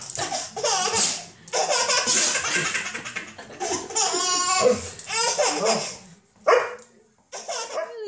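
A baby laughing in repeated bursts of giggles and belly laughs, with short pauses between them.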